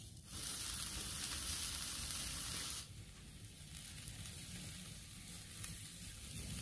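Sea scallops sizzling as they sear on a wire-mesh grill basket over hot charcoal: a steady hiss, louder for the first few seconds, then dropping to a quieter sizzle about three seconds in.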